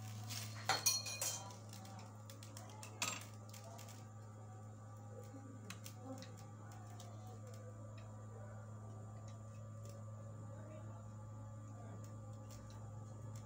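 Small clinks and taps of tools and a brush against a bare mobile-phone circuit board, sharpest about a second in and again at three seconds, then faint scattered ticks. A steady low electrical hum from bench equipment runs underneath.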